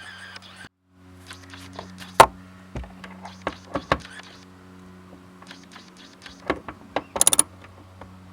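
Small metal clicks and knocks of screws and nuts being handled and fitted by hand, the loudest about two seconds in, with a quick burst of ratchet clicks near the end, over a steady low hum.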